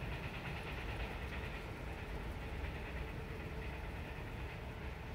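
Steady low rumble and hiss of a passenger train carriage heard from inside.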